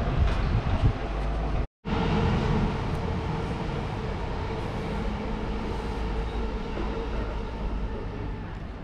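A passing vehicle's steady rumble with a faint hum in it, easing off slowly toward the end. It comes in after a brief dropout just under two seconds in, before which there are irregular thumps.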